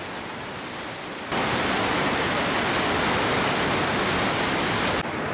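Floodwater of the South Esk River rushing through the gorge as white-water rapids: a steady, even rush of water that turns clearly louder about a second in and drops back a little near the end.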